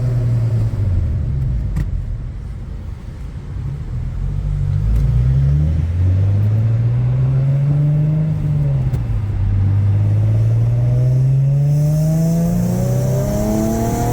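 Infiniti G37's 3.7-litre V6 accelerating hard through the gears, its pitch climbing, dropping at an upshift about eight and a half seconds in, then climbing again.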